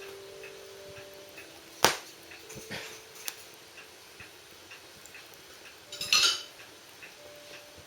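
Wood fire burning in a sunken irori hearth, with a sharp loud pop about two seconds in, a smaller pop a second later, and a short burst of crackling around six seconds. Thin whistling tones come and go in the first half.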